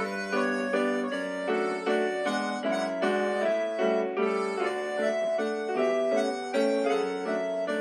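Instrumental background music: a simple melody of pitched notes over held chords on an electronic keyboard-like instrument. The notes change about every half second, in short repeating phrases.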